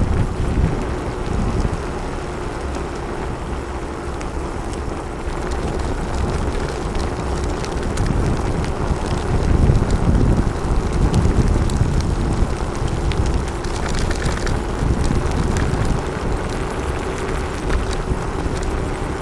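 Riding noise from an e-scooter picked up by a camera mounted low by its front wheel: wind buffeting the microphone and the tyre rolling on a paved forest road, with a faint steady hum underneath and a few small clicks and rattles.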